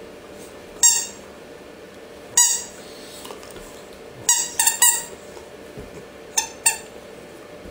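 A French bulldog chewing a squeaky chew toy, which lets out short high squeaks: one about a second in, another at two and a half seconds, three quick ones in a row in the middle, and two close together near the end.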